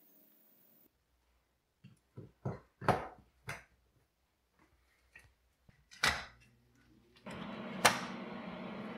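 A run of sharp clicks and knocks from fittings and hardware handled during wiring work, with one more a few seconds later. Near the end a steady electrical machine hum starts, cut through by one loud click.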